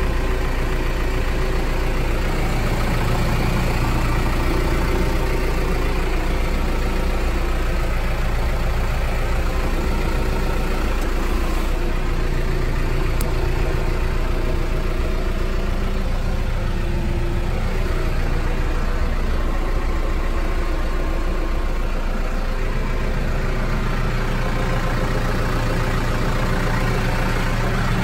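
A 2012 Case IH JXU 95 tractor's four-cylinder diesel engine idling steadily at low revs, heard from inside the cab.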